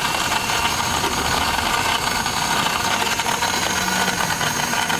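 A motor running steadily with a rattling hum.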